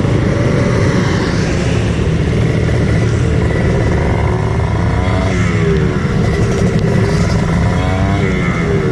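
Kawasaki Ninja two-stroke motorcycle engine running under way, a steady buzzy drone with road and wind noise. In the second half its pitch dips and climbs again a few times.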